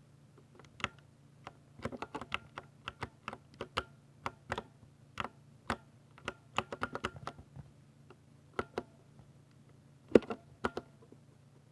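Typing on a Ducky 60% mechanical keyboard with Cherry MX Silver linear switches: irregular runs of quick keystroke clacks broken by short pauses, with one louder stroke near the end.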